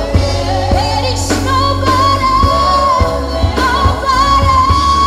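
Live gospel worship song: a woman sings long, slightly wavering held notes over a band with drum kit and electric guitar.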